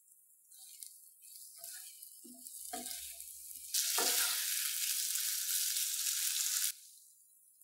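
Marinated chicken pieces frying in hot oil in a pan: a light sizzle with a few clinks and scrapes of a utensil. Then a much louder sizzle starts abruptly and cuts off suddenly about three seconds later.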